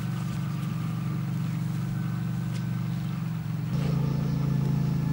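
A steady low motor drone, growing a little louder and shifting in pitch about three and a half seconds in.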